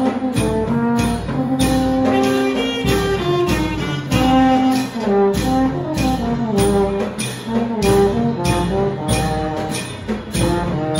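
Thai traditional brass band (trae wong) playing a tune, several horns including a euphonium sounding melody and harmony lines together, over a steady beat of about two hits a second.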